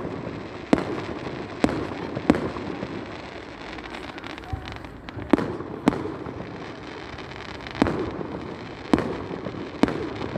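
Fireworks display: shells bursting in a string of sharp bangs, about eight in ten seconds and irregularly spaced, over a continuous rumbling noise.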